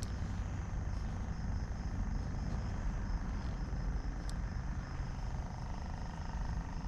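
Steady low rumbling background noise, with a faint, evenly pulsing high tone above it and one short click about four seconds in.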